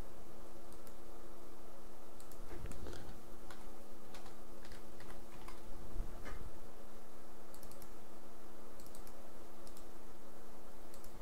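Irregular clicking and tapping of a computer keyboard and mouse, with a couple of louder knocks about three and six seconds in, over a steady low electrical hum.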